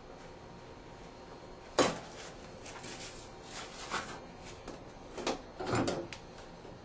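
Hard objects being handled: a sharp knock about two seconds in, then a few lighter clicks and knocks and a short clatter near the end.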